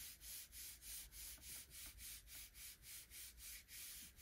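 Palms rubbing back and forth over the back of an old book page, a faint rhythmic papery hiss at about four strokes a second: the page is being burnished down to pull a Gelli plate print.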